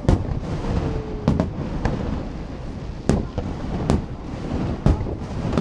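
Aerial fireworks shells bursting: a string of sharp bangs, roughly one a second, with a loud one right at the start and others near two, three, four and five seconds in.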